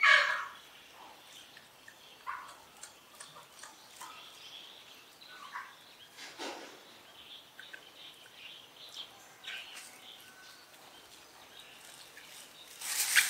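Scattered short high-pitched animal chirps and squeaks, with a louder squeal right at the start, another about halfway through and a sharper, louder sound near the end.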